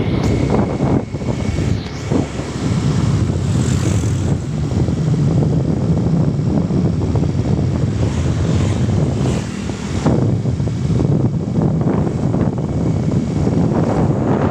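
Heavy wind buffeting on the microphone over a steady low rumble.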